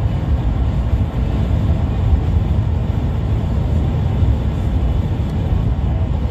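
Steady low rumble of road and wind noise heard from inside a car travelling at highway speed.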